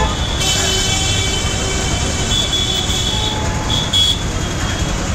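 Busy road traffic: cars and a motorcycle passing with a steady low engine rumble, and a few short high-pitched toots partway through and near the end.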